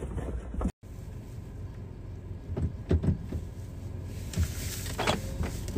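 Steady low hum of a car cabin with a few soft knocks and thuds, broken by a sudden dropout under a second in.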